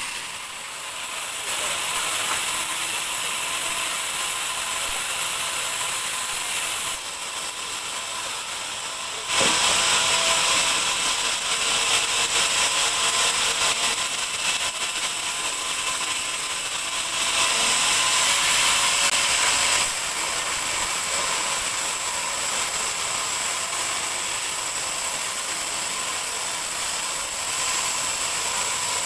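Large band sawmill running and cutting lengthwise through a dry teak log, a steady hissing saw noise that gets louder about nine seconds in.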